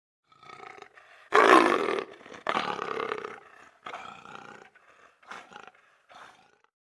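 Leopard roaring: a soft opening call, then two loud, long calls about a second in, followed by three shorter calls that grow fainter.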